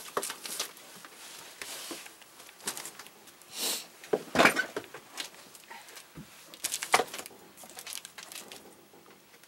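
Packaging being handled during an unboxing: scattered rustles, crackles and knocks, with the loudest bursts about four and a half and seven seconds in.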